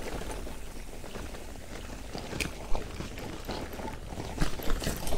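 Bombtrack Beyond 1 loaded touring bicycle riding over a bumpy grassy cattle track: a steady low rumble with scattered knocks and rattles from the bike and its bags, a few sharper ones in the second half.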